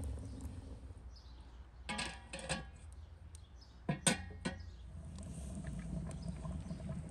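Metallic clanks with a short ring: a quick cluster about two seconds in, then one or two louder knocks about four seconds in as a metal ladle strikes the lid of a large aluminium stockpot. A low steady rumble lies underneath.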